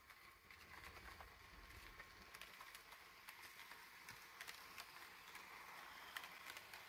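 Tenshodo HO-scale Kumoru 145 and Kuru 144 model electric cars, driven by a Power Truck motor unit, running along the layout track. A faint steady running noise with light, irregular clicking of the wheels on the rails.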